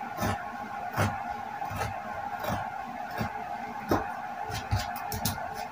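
Scissors snipping through denim fabric: single snips about a second apart, then several quick snips close together near the end, over a steady background hum.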